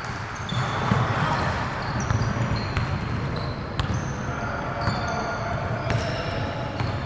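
A ball bouncing and sneakers squeaking in short high chirps on a gym court, over a steady hubbub of players' voices in the hall.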